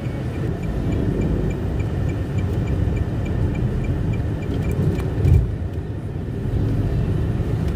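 Car driving in slow city traffic, heard from inside the cabin: a steady low road and engine rumble. A faint, fast, regular ticking runs for the first few seconds, and a single low thump comes about five seconds in.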